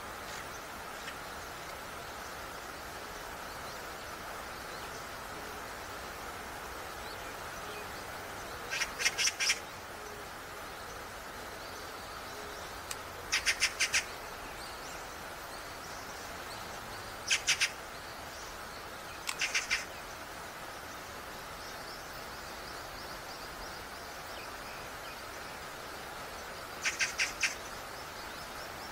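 A bird calling five times, each call a short, rapid run of high notes, over a steady background hiss.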